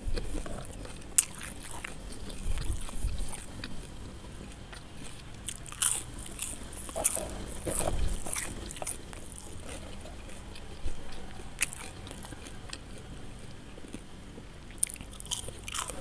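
Close-miked chewing and crunching of crispy fried potato sticks, with sharp crackly bites coming in irregular bursts.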